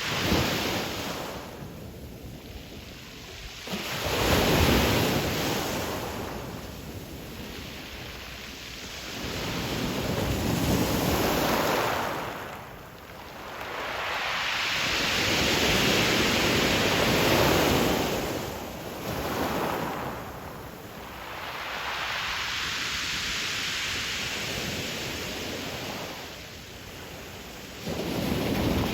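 Sea waves breaking on a pebble beach, each one surging in and washing back over the stones, with the roar rising and falling about every five seconds.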